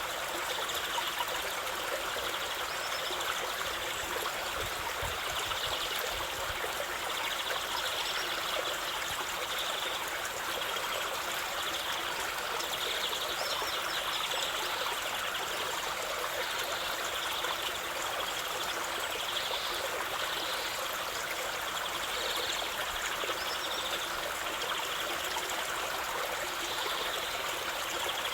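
Running water of a stream, a steady rush and trickle.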